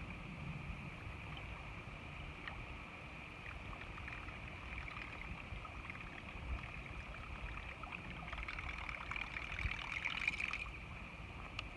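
Steady rain hiss with scattered single drop ticks over a low rumble; the ticking grows dense for about two seconds near the end.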